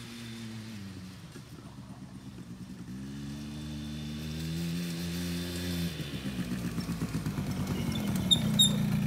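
Small youth four-wheeler (ATV) engine coming closer. Its pitch rises as it speeds up about three seconds in and drops back around six seconds, then it grows louder and settles to a lower, pulsing note as it pulls up close. Two short high squeaks near the end.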